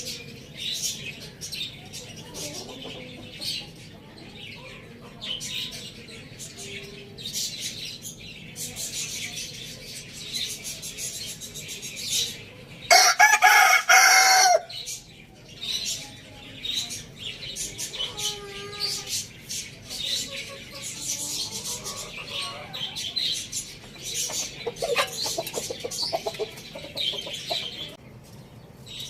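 A rooster crows once, loud and about two seconds long, partway through, over steady high-pitched chirping of small birds; hens cluck a few times later on.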